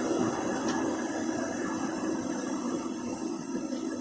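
Steady mechanical hum of running shop machinery, with a faint tick a little under a second in.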